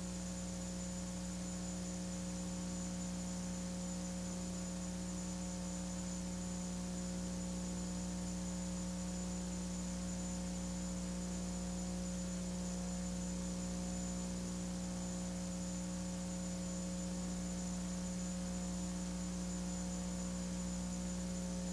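Steady electrical mains hum over a faint hiss, unchanging throughout, with no other sound.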